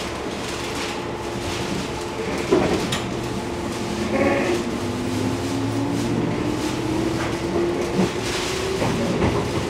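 JR Kyushu 415 series electric train pulling away: over a steady hum, the traction motors' whine rises steadily in pitch from about halfway as the train gathers speed. There is a sharp knock about two and a half seconds in and a brief high tone about four seconds in.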